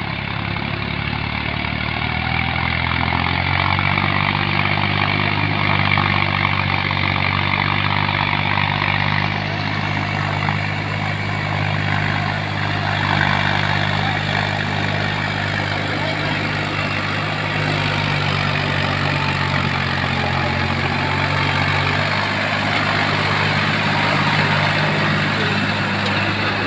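Massey Ferguson 246 Dynatrack tractor's three-cylinder diesel engine running steadily under load while driving a rotary tiller through wet paddy mud; the engine note rises slightly about three seconds in, then holds.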